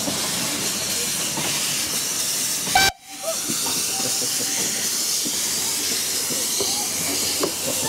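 Steady loud hiss of escaping steam from a Hunslet 0-4-0 quarry saddle tank locomotive, cut off briefly about three seconds in, then carrying on.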